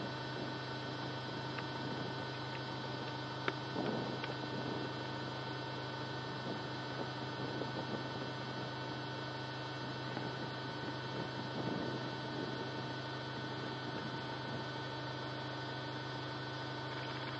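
Steady electrical mains hum with a faint irregular background hiss and a single sharp click about three and a half seconds in.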